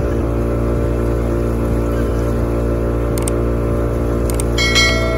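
Motor of a small tourist boat idling steadily at an unchanging pitch, with a couple of faint clicks in the middle.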